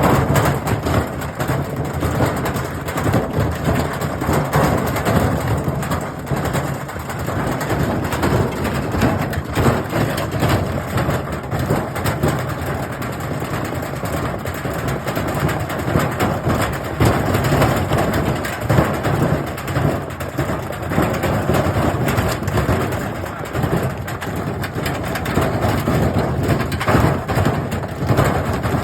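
Washing machine running with hard objects loaded in its drum: continuous loud clattering, knocking and grinding as the load is thrown around.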